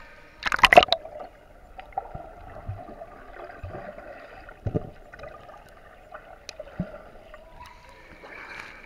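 Water splashing as a child swims up to the camera, loudest about half a second in. After that it is heard from just under the surface: muffled sloshing and bubbling with a few short knocks.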